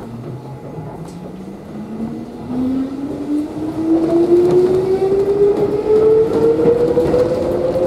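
Electric train pulling away from a station: the traction motors' whine climbs steadily in pitch as the train accelerates, over the rumble of the car, heard from inside the carriage and growing louder.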